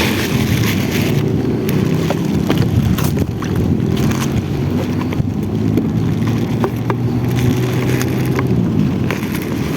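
A boat's engine running steadily, with wind buffeting the microphone and a few faint clicks and knocks.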